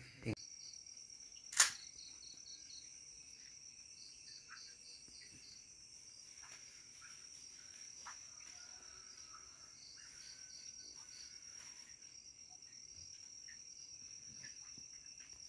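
Crickets chirping steadily in a high, pulsing trill, with one sharp click about one and a half seconds in.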